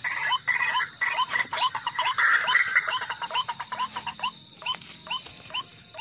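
White-breasted waterhen (ruak-ruak) calling: a rapid string of short, upward-hooked notes, several a second, thinning out in the second half. A steady high buzz of night insects runs behind it.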